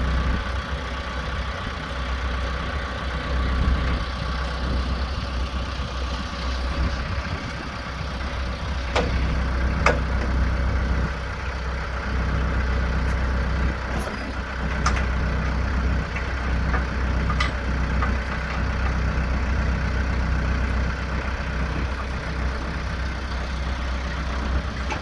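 Branson F Series compact tractor's diesel engine idling steadily, with a handful of sharp clicks and knocks in the middle.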